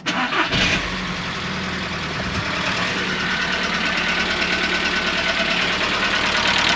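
Audi A2's 1.4-litre AUA four-cylinder petrol engine starting and settling into a slightly shaky idle with a fast, constant ticking clatter. The owner takes the ticking for worn hydraulic lifters and fears piston slap, a known weakness of these VW 1.4 engines.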